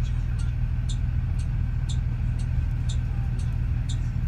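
Low steady rumble of a moving bus heard from inside the cabin, with a regular light tick about twice a second.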